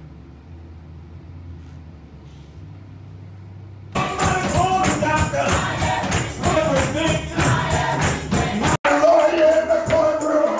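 A faint steady low hum for about the first four seconds, then gospel music from a church service starts abruptly: group singing with tambourine on the beat. After a split-second dropout near the end, a man sings into a microphone over the band.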